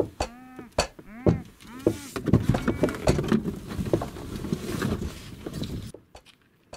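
Muffled moaning cries of a man gagged with tape and shut in a car boot: several short rising-and-falling moans in the first second or so. These give way to a few seconds of knocking, thumping and rustling, which stop near the end.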